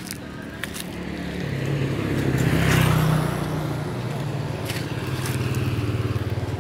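A motor vehicle's engine running steadily with a low hum. It grows louder to a peak with a rush of noise about three seconds in, then settles back.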